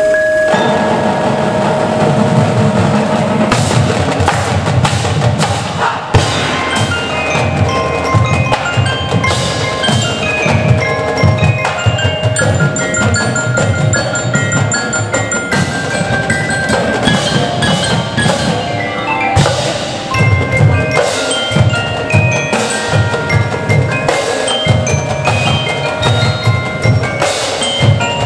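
A marching drumline with a front ensemble plays. Mallet keyboards carry a melody over dense, continuous drumming.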